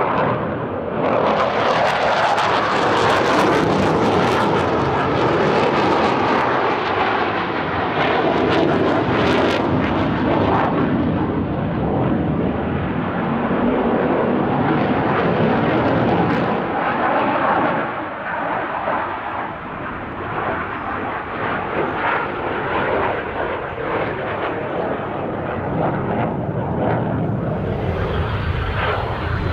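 Saab JAS 39C Gripen fighter's jet engine, loud as it flies its display for the first half or so, then lower and steadier after about eighteen seconds, with a thin falling whine near the end.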